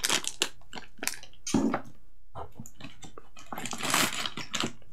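Sealed plastic accessory bags crinkling and rustling as they are pulled by hand from a carrying case's mesh pocket, in several short rustles.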